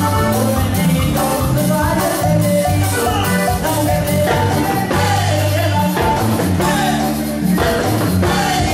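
Live band playing loud Latin dance music, with a steady beat and a strong bass line.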